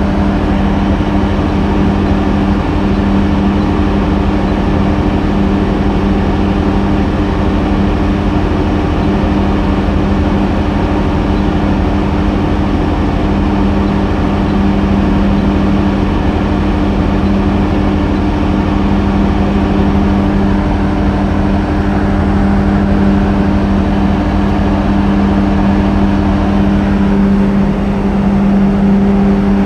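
1250 kVA diesel generator set running steadily under a load test: a loud, even engine drone with a steady hum. Near the end a new tone joins as the sound shifts slightly.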